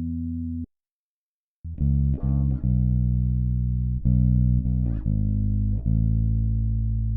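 Sterling by Music Man Ray4 electric bass played clean, with no other instruments. A held note cuts off under a second in, and after a second of silence comes a run of about eight plucked notes, each left to ring. The later notes go through the bass's stock preamp with bass at half and treble fully cut.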